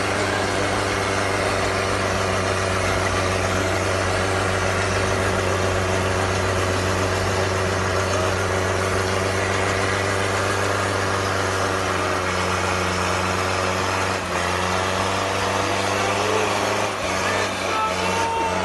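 Off-road pickup truck's engine running at steady, low revs while the truck crawls up a snowy track. The engine note sags slightly about two-thirds of the way through.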